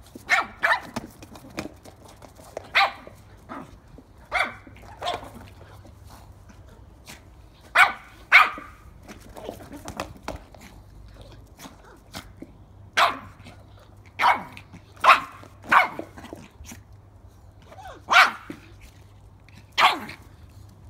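Yorkshire terrier puppy yapping in short, sharp, high-pitched barks, about sixteen of them at uneven intervals, some in quick pairs. The barking is excited play barking at a ball.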